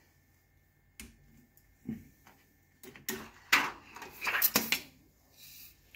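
Plastic and metal parts and cables inside an opened weighing scale being handled: a few light clicks, then a louder cluster of scraping and clicking about three to five seconds in.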